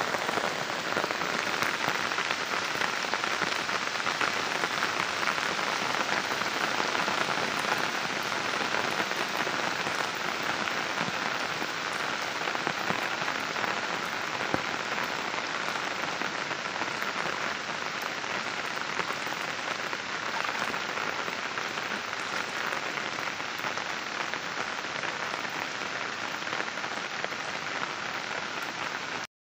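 Heavy rain falling, a steady dense hiss that eases slightly in level as it goes on.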